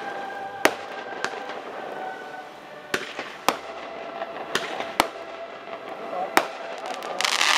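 Consumer fireworks going off: about seven sharp single bangs at irregular intervals of roughly half a second to a second and a half, then a dense crackling burst near the end.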